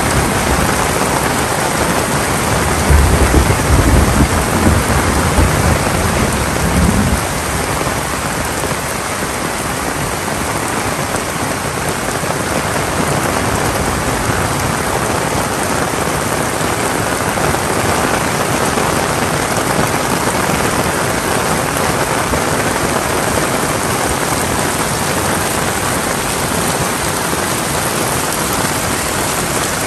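Heavy rain falling steadily with an even hiss. About three seconds in, a low rumble rises under it for some four seconds.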